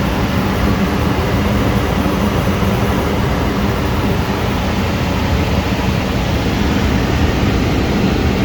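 Amana gas furnace running steadily: a loud, even rush of air with a low steady hum. It is running normally after its pressure switch was replaced, with no error codes.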